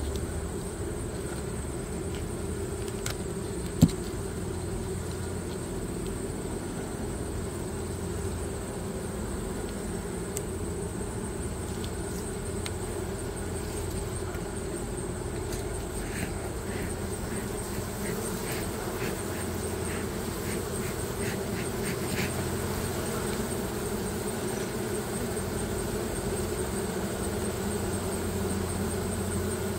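Honey bees humming steadily over an open hive box. A single sharp knock comes about four seconds in, and a run of faint ticks follows past the middle.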